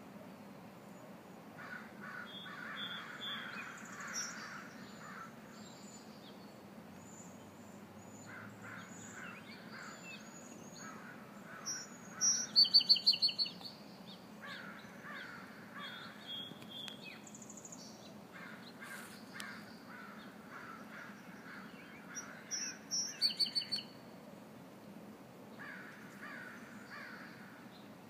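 Small songbird singing two loud bursts of song about ten seconds apart, each a quick run of repeated high notes, with other birds chirping and calling more faintly throughout.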